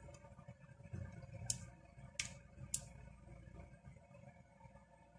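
Three faint, sharp clicks, about one and a half, two and two and three-quarter seconds in, from a screwdriver tip pressing the small button on the plastic case of a Vingcard service terminal. The unit stays dead and gives no startup sound.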